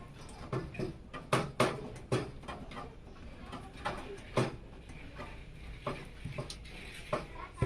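Irregular small clicks and knocks of computer parts and hardware being handled and fitted into a PC case, a few sharp taps a second at times.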